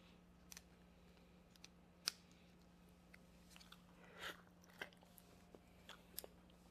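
Near silence with a steady low hum and a scattering of faint clicks and small mouth sounds: a person eating a layered gelatin shot. The sharpest click comes about two seconds in.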